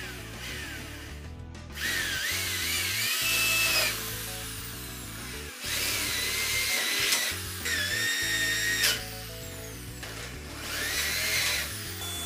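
Electric drill boring holes into a wooden cabinet top in four short runs, the motor's whine rising and falling in pitch during each run. Background music plays underneath.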